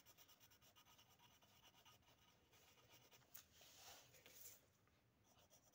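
Faint scratching of pencil strokes on paper, a little stronger around the middle.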